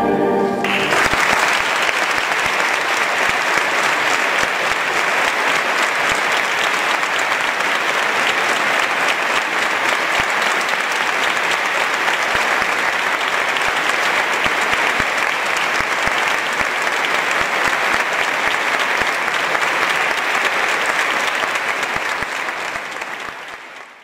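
A concert band's final brass chord cuts off in the first second, then an audience applauds steadily, the clapping dying away near the end.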